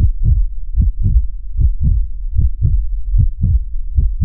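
Heartbeat sound effect: pairs of low thumps, lub-dub, repeating about 75 times a minute over a steady low rumble.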